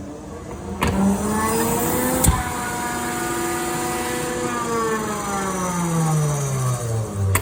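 Hitachi OSP-15VARN 15 kW air compressor running. It starts with a click about a second in, its motor speeds up with a rising whine, and it holds steady. From about halfway the tone falls as the motor slows down, and there is another click at the end.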